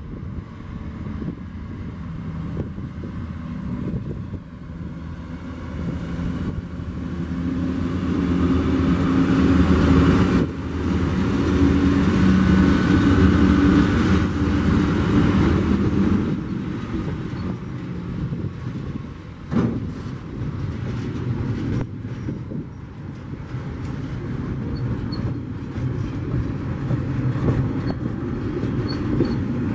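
Two TasRail TR-class diesel-electric locomotives, TR01 leading TR17, working under power as they pass, their engine drone loudest around the first third to half. Loaded log wagons then roll by with a steady wheel rumble and occasional sharp clicks.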